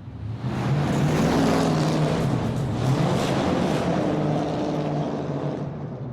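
Muscle car V8 engine running with big-room reverb. It swells up from quiet, holds loud for about four seconds, then fades away near the end.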